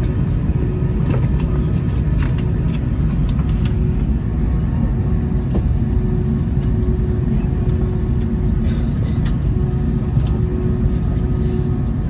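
Cabin noise aboard an Airbus A330 during pushback and taxi: a loud, steady low rumble with a constant hum, and a few faint clicks.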